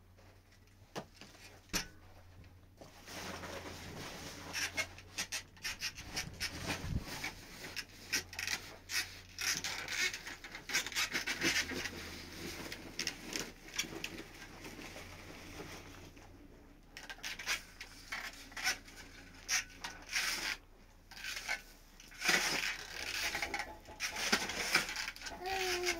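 Steel shovel scraping and scooping through a pile of sand and cement on a dirt floor: a busy run of scrapes and clicks that stops for about a second partway through, then starts again. A short rising call comes near the end.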